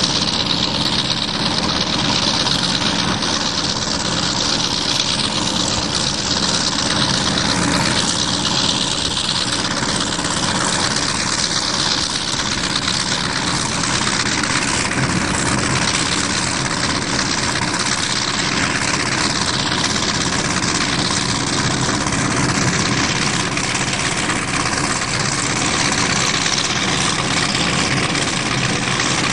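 Bass boat under way at a steady speed: its outboard engine running constantly beneath wind and water rushing past, with no change in pace.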